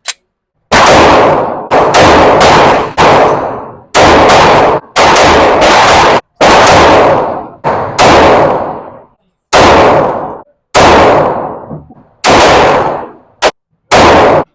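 A firearm fired rapidly at a target: about fifteen loud shots at uneven spacing, some in quick pairs, each followed by a long echoing decay.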